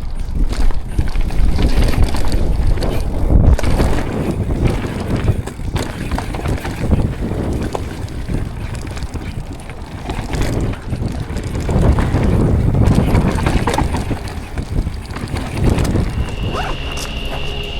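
Mountain bike ridden downhill over rough, rocky trail: tyres rolling and skidding, the bike rattling and knocking over bumps, with wind buffeting the microphone in loud surges. A steady high tone comes in near the end.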